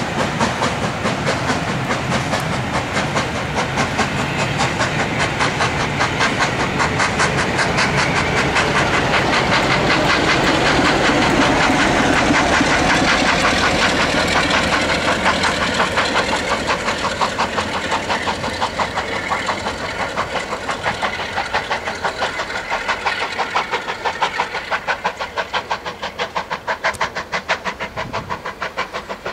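LMS Black 5 4-6-0 two-cylinder steam locomotive working a train, a fast, regular beat of exhaust chuffs with the carriages' wheels running on the track. It is loudest about halfway, then fades as the train draws away.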